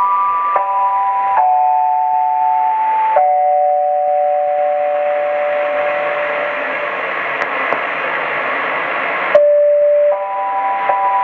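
Medium-wave AM radio reception: steady held tones stepping from one chord to the next over a constant hiss. Partway through, the tones fade away into the hiss. A sharp click comes about nine seconds in and the tones return.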